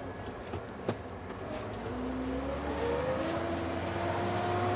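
New Holland T6 methane-fuelled tractor pulling away, heard from inside the cab: a low engine hum with a transmission whine that rises in pitch from about a second and a half in and then levels off as the tractor picks up speed. A single click about a second in.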